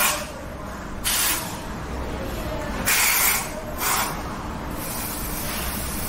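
Aerosol smoke-detector test spray hissing from a can in three short bursts, then a longer, softer hiss near the end, as canned smoke is puffed into a smoke detector to set it off.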